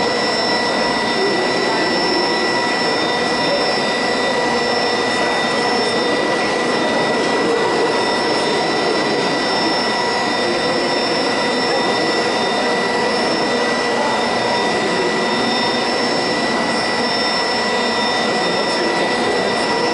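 Colliery winding engine running with its large grooved cable drum turning: a steady mechanical rush with a constant high whine.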